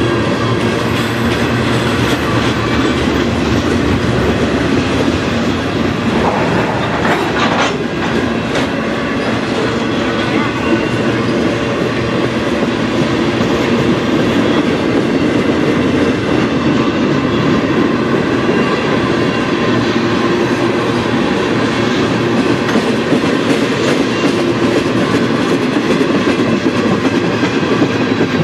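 Freight train of covered hoppers, tank cars and boxcars rolling past at close range: a steady, loud rumble and clatter of the cars' wheels on the rails.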